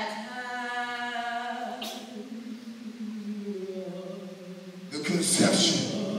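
A single unaccompanied voice singing one long held note, its pitch dipping slightly after about four seconds. About five seconds in, louder, breathier voice sounds take over.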